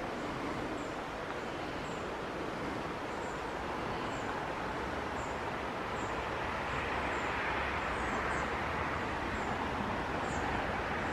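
Steady outdoor background noise that grows slightly louder about halfway through. A faint high chirp repeats roughly once a second, with a few quick high calls near the end.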